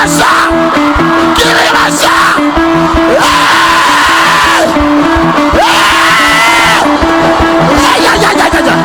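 Live church band playing an upbeat song with a steady beat, guitar and bass, while the congregation shouts, whoops and cheers over it in celebration.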